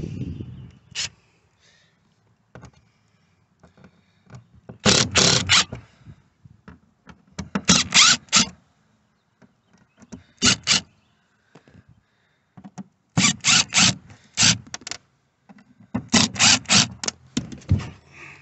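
Cordless drill/driver backing screws out of speaker rims in a fibreglass boat panel: about five short bursts of whirring, each broken into a few quick pulses, with quiet between them.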